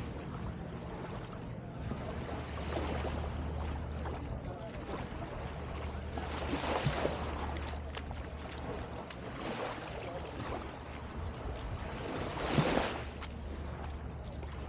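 Small waves breaking and washing up on a sandy beach, with the wash swelling twice, the louder one near the end, over a steady low hum.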